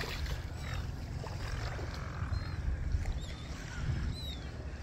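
Low rumble of wind on the microphone at the water's edge, with faint short bird chirps scattered through.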